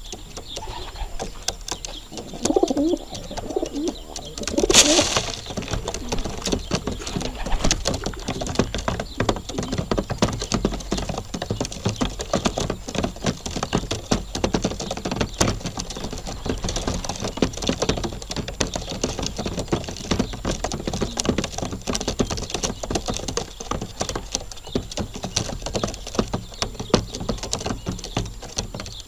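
Racing pigeons pecking grain off a hard loft floor, a dense patter of quick beak taps. Pigeons coo during the first few seconds, and there is a brief loud sound about five seconds in.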